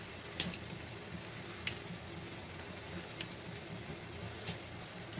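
A knife cutting a set gram-flour slab into small pieces, its blade clicking sharply against the plate four times, about every second and a half, over a faint steady hiss.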